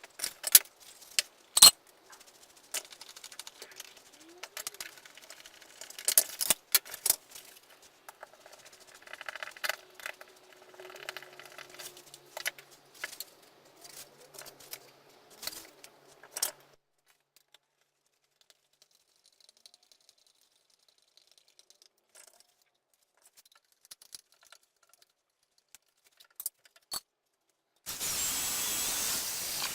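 Wooden bird-table parts and small hardware being handled and fitted together by hand: irregular clicks, knocks and light rattles for the first half, then near quiet. A short burst of steady noise comes near the end.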